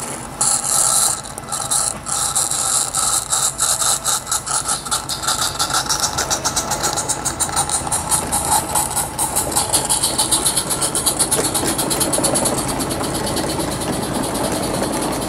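Roundhouse live steam garden-railway locomotive pulling away with its train: a burst of steam hiss, then exhaust chuffs that quicken as it gathers speed, followed by the coaches' wheels rolling along the track.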